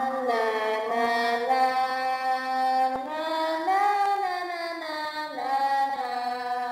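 Women singing together without accompaniment, in long held notes that slide slowly up and down in pitch.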